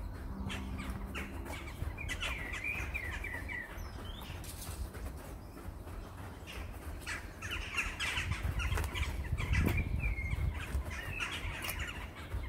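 Small birds singing in several quick warbling, chirping phrases, about three bursts, over light quick footsteps on grass and a low rumble that swells in the second half.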